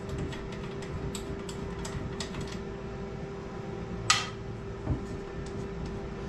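Small clicks and rattles as the guard is taken off the test-fluid bath on top of an Asnu fuel-injector testing machine, with one louder clack about four seconds in and a low thud just after it. A steady hum runs underneath.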